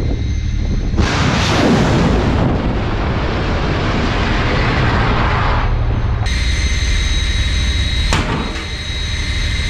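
Uran (Kh-35) anti-ship cruise missile launching from a warship's deck launcher: a sudden blast about a second in, then a rushing roar that dies away about six seconds in. After that, a steadier noise with a faint whine and one sharp crack near the end.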